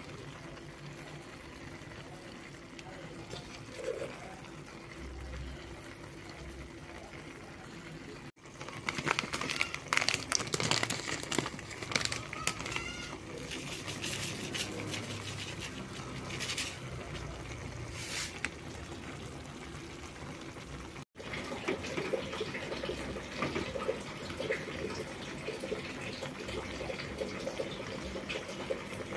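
Chaya leaves stir-frying in an aluminium wok: a steady sizzle, with a metal ladle clinking and scraping against the pan. In the louder middle stretch liquid is poured in from a plastic bag, and after that the pan sizzles and bubbles with the added liquid.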